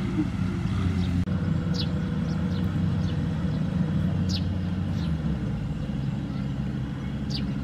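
Kubota M6040SU tractor's four-cylinder diesel engine running steadily as the tractor drives, its level easing a little about two-thirds of the way through. A few short, high chirps sound over it.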